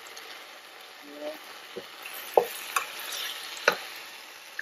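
Chicken drumsticks sizzling as they brown in hot oil in a nonstick frying pan, with metal tongs clicking and knocking against the pan several times as the pieces are turned.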